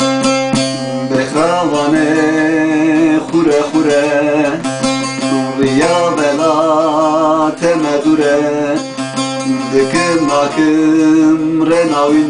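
Baglama (long-necked saz lute) playing a Kurdish folk melody with quick plucked strokes over a steady drone. A man's voice holds long, wavering notes without words three times: about a second in, around the middle, and near the end.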